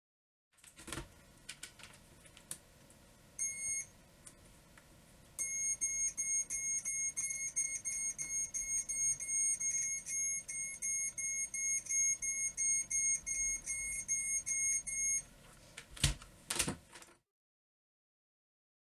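Electronic beeper sounding a rapid series of short, high beeps, about three a second for around ten seconds, with a brief burst of beeps a few seconds earlier. A few sharp clicks come about a second in and again near the end.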